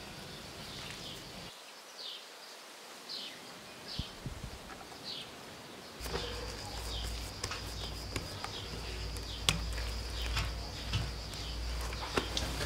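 Small birds chirping in short, high, downward-sliding notes, about one a second. About six seconds in, the background changes to a steady low hum and a steady high whine, with a few sharp taps among the chirps.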